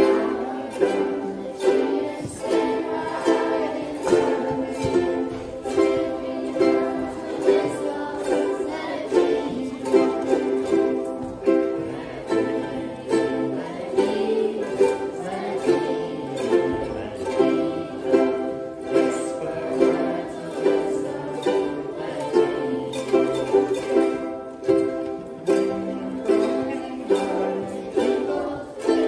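A group of children strumming ukuleles together in unison, a steady strummed chord rhythm with an accented stroke about once a second.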